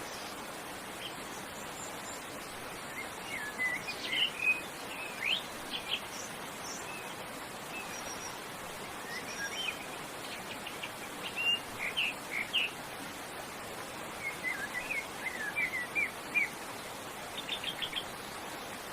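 Wild birds chirping in scattered clusters of quick notes over the steady rush of a waterfall.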